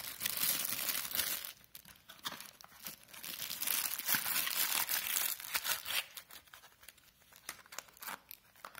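Thin clear plastic bag crinkling and rustling as it is handled. It is loudest in the first second and a half and again from about two to six seconds in, with fainter scattered crackles near the end.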